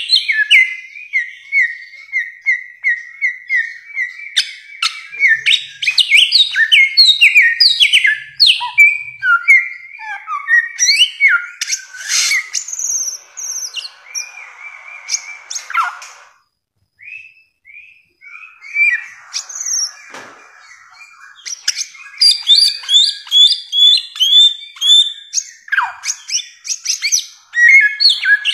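Bare-throated whistler (samyong) singing a long, varied song: fast runs of short repeated whistles, rising and falling notes and chattering phrases. A little past the middle there is a pause of about two seconds before the song picks up again densely.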